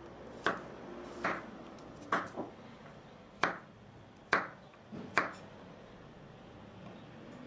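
Kitchen knife cutting through garlic cloves onto a wooden cutting board: eight sharp knocks of the blade hitting the board, unevenly spaced, two of them close together, over the first five seconds.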